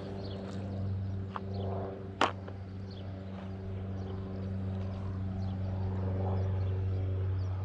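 A steady low mechanical hum throughout, with a few sharp clicks from handling plastic tackle, the loudest just over two seconds in.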